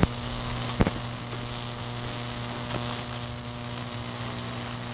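A 15,000-volt, 40-milliamp transformer humming steadily while it arcs through a folded foil gum wrapper, the arcs hissing faintly. A sharp snap comes just under a second in.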